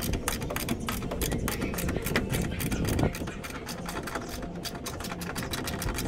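Rapid, continuous clicking of a ratchet wrench turning out an 8 mm bolt, about ten clicks a second, over a steady low hum.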